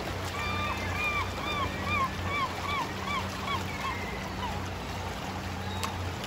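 Gulls calling over a feeding frenzy: one gull gives a quick run of about ten yelping calls that fades out about four seconds in, over water noise and a steady low hum.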